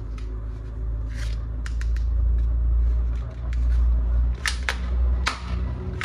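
Plastic toy guns being handled: a string of sharp, irregular plastic clicks and snaps over a low handling rumble.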